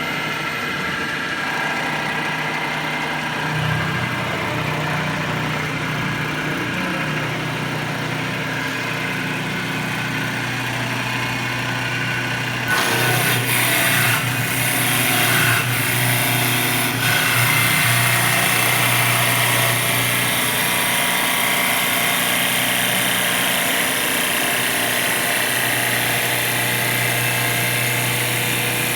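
Wood lathe running with a steady motor hum. About halfway through, a louder rough hiss with a few scraping catches joins as a tool cuts into the turning wood.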